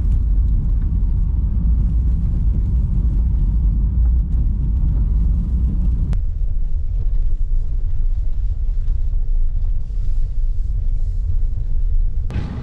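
Road rumble inside a car's cabin while driving on an unpaved gravel road: a heavy, steady low rumble that turns lighter about halfway through.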